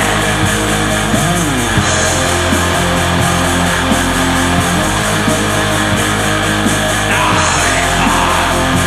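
Heavy metal track: distorted electric guitars over steady drumming and cymbals, loud and dense.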